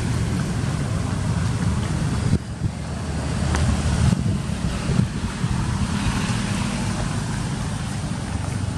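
Outdoor background noise: a low rumble with a hiss over it. It changes abruptly about two and a half and four seconds in, and a few faint clicks sound over it.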